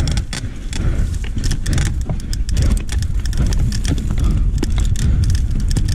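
Mountain bike riding down a rough dirt singletrack: a steady low rumble of tyres and air noise on the handlebar-mounted camera, with frequent clicks and rattles as the bike jolts over the ground.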